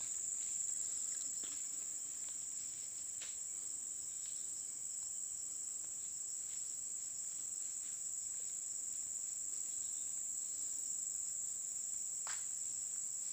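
Steady high-pitched drone of insects calling, unbroken throughout, with a couple of faint clicks about three seconds in and near the end.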